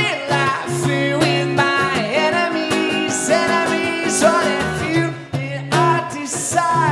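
Live rock music with guitar and a singing voice.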